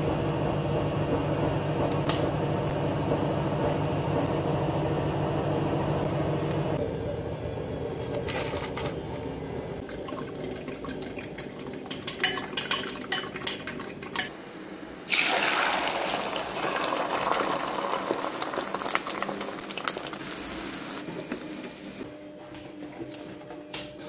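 A steady hum for the first several seconds, then a fork whisking eggs in a bowl with a run of quick clinks, then eggs sizzling in a frying pan for several seconds.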